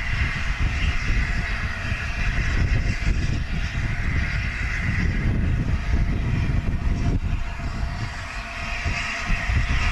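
Peppercorn A1 Pacific steam locomotive 60163 Tornado, a three-cylinder 4-6-2, working slowly toward the listener: a steady hiss of steam over an uneven low rumble.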